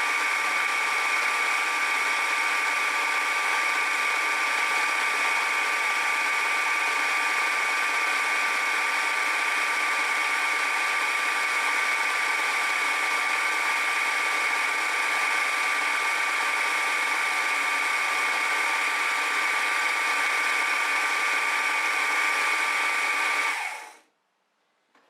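Milling machine running with a 4-flute carbide end mill taking a light cut, a steady whine with two high tones over a constant hiss. It stops suddenly shortly before the end.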